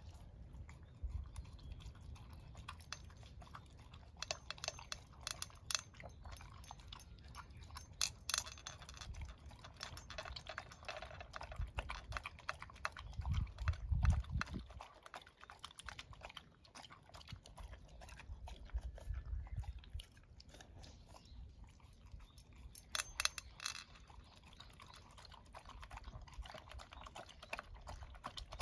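Dog eating from a bowl: steady chewing with many sharp, crunchy clicks of food and teeth. A brief low rumble comes about halfway through.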